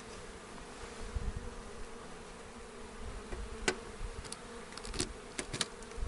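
Honeybees buzzing in numbers around their opened hive, a steady hum, with a few sharp clicks in the second half.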